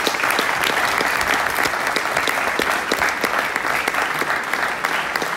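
Audience applauding, many hands clapping at a steady strength.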